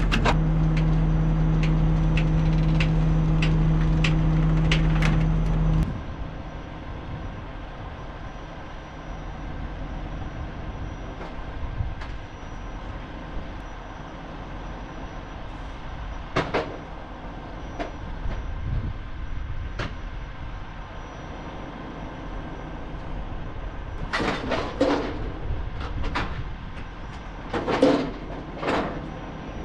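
Car-carrier trailer's hydraulic system running with a steady hum while its deck controls are worked, cutting off suddenly about six seconds in. After that, scattered metal knocks and clanks from the trailer ramps, with a cluster of them near the end as a car is rolled down.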